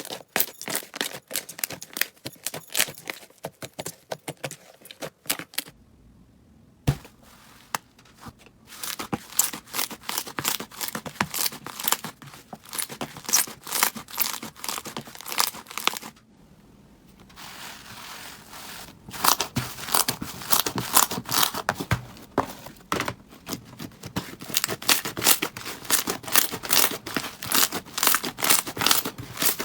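Slime being squeezed and kneaded by hand: rapid sticky crackling and popping, in several stretches with short quieter gaps between them.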